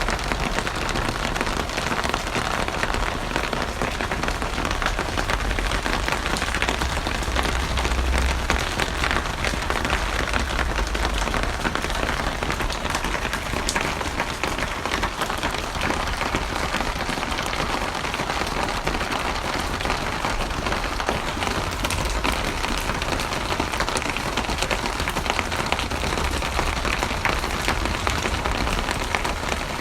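Steady heavy rain, a dense patter of drops on a surface with a low rumble underneath.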